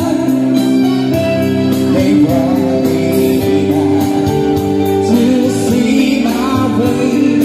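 Live band playing through a PA: singing over electric guitar and keyboard, with a steady beat.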